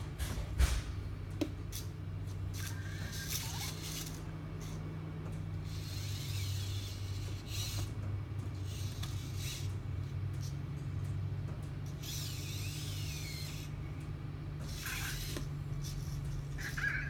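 Anki Cozmo toy robot's small motors whirring in short spells with gliding pitch as it drives and moves about on the desk. It starts with a couple of knocks as it is set down, and a steady low electrical hum runs underneath.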